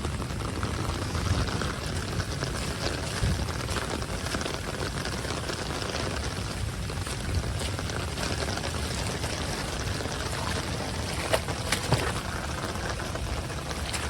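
Heavy rain falling with water pouring and running as flood runoff, a steady wash of sound. A few sharp taps of drops come near the end.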